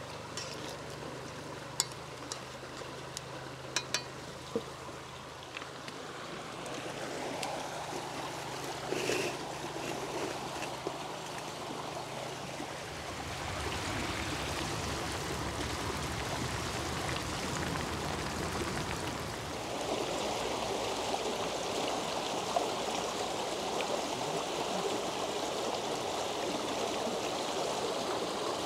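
Steady rush of a shallow stream running over stones, growing louder about halfway through. In the first few seconds there are a few sharp clicks as a wooden spoon stirs vegetables in a frying pan.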